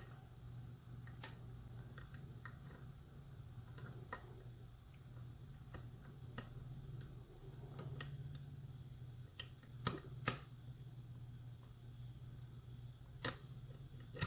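Lock pick working the pins of a pin-tumbler challenge lock during single-pin picking: scattered small sharp clicks and ticks, the loudest about ten seconds in, over a steady low hum.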